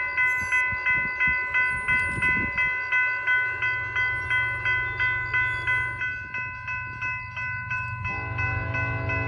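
Railroad crossing bell ringing about three times a second, with the low rumble of an approaching BNSF freight's locomotives building underneath. About eight seconds in, the lead ES44C4's Nathan K5LLA five-chime air horn starts to sound.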